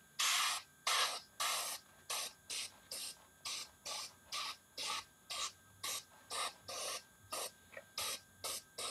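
Airbrush spraying in short bursts, about two a second, as the trigger is pressed and released. The first three bursts are longer and louder, and the rest are brief puffs.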